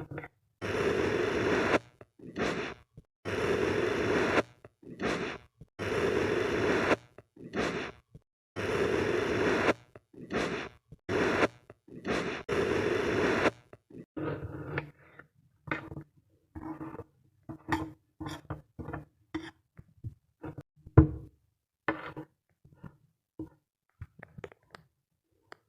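Sand being scraped or cut in a series of long, even strokes about a second each, with shorter strokes between. About halfway through they give way to quieter, short scattered crumbling sounds.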